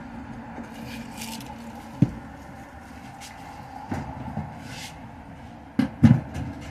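Steady low background hum with scattered knocks and thumps, the loudest two close together near the end, and a few brief hissy rustles.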